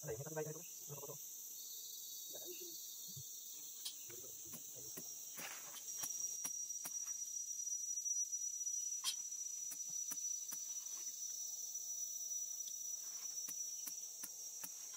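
Steady high-pitched insect buzzing, a little louder from about six seconds in, with a few faint clicks and a brief murmur of voices near the start.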